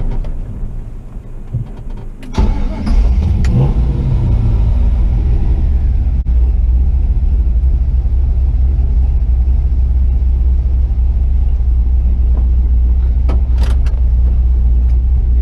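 Chevy 4x4 truck with a swapped-in 6.0 L LY6 V8 driving: about two seconds in the engine comes on load, rising in pitch, then settles into a loud, steady low rumble, with a few brief knocks.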